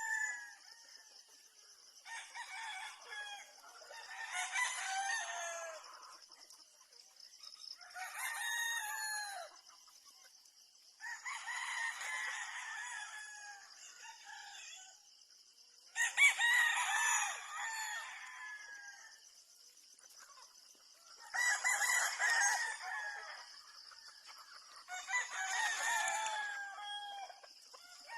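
Gamefowl roosters crowing one after another, about eight crows a few seconds apart, over a steady high-pitched buzz.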